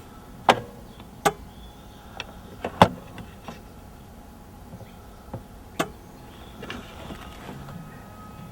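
A handful of sharp clicks and knocks at irregular intervals: two about a second apart near the start, a cluster a little before the middle, and two more later on, over a low steady hum.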